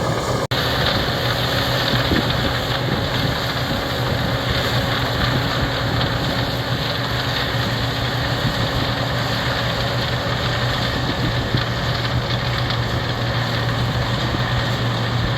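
Heavy diesel farm or truck engine running steadily, a constant low drone with an even hum, cut by a brief dropout about half a second in.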